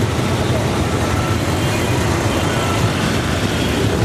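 Inside an auto-rickshaw: its small engine running steadily in dense city traffic, a constant din of engines around it.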